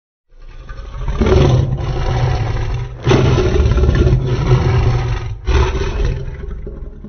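Custom-made Godzilla roar: a loud, harsh, rumbling monster roar that swells over about a second, breaks off briefly about three seconds in and again past five seconds, then trails off.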